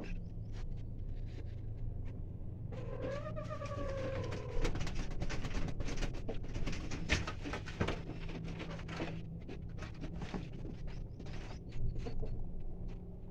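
Broody hen on her eggs in a sawdust nest box: one drawn-out call about three seconds in, then a run of scratchy rustles and clicks as she shifts in the bedding. A steady low hum runs underneath.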